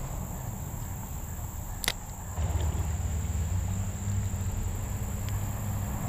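A spinning reel being cranked on a retrieve, heard as a low steady rumble, under a steady high insect drone. One sharp click comes about two seconds in.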